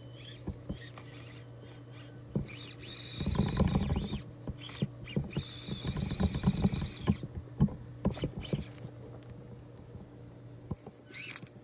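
Axial SCX24 mini RC crawler driving over a log crossing. Its electric motor and gears whine in two short bursts of throttle as it climbs, and its tires and chassis click and knock against the logs.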